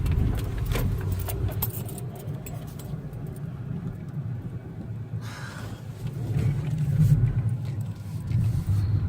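Car driving slowly, a steady low rumble of engine and road noise heard from inside, with light rattling and clicks.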